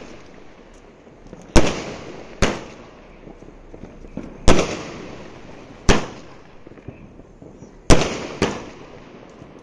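A 240-shot aerial firework cake firing shells that burst overhead: six sharp bangs at uneven gaps of about half a second to two seconds, each trailing off, with faint small pops and crackle between them.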